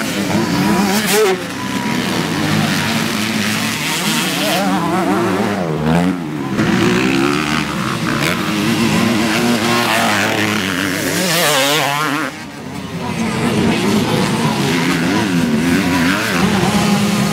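Several 250 cc dirt bike engines racing, revving up and down as the riders accelerate and shift, with overlapping engine notes. There is a short lull about two-thirds of the way through before the revving picks up again.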